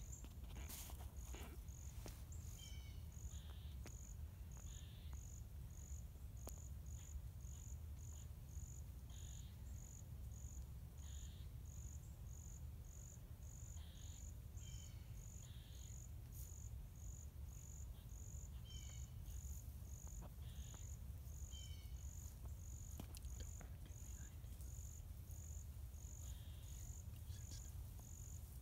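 An insect chirping on a high, even pulse, about three chirps every two seconds, with scattered bird calls and a steady low rumble underneath.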